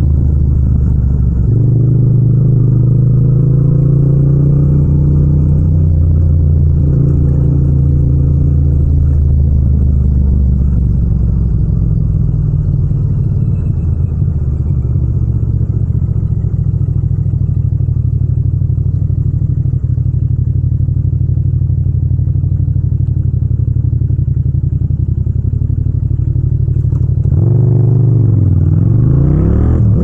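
Yamaha MT-07's 689 cc parallel-twin engine and exhaust running steadily at low speed. About 27 seconds in it revs up with a steeply rising pitch as the bike accelerates in second gear.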